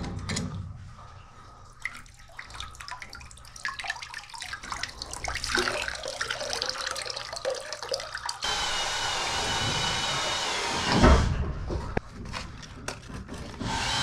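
Metal tools clicking and scraping on the fittings at a basement water meter, then about eight seconds in a steady loud hiss of pressurised water rushing from the opened galvanized line into a plastic tub, with a heavy thump near the end. The supply is still live and has to be shut off at the street before the repair.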